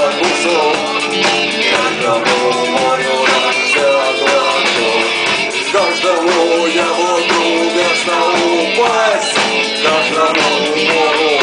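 A live rock band playing loudly, with electric guitars carrying a melody over bass and drums.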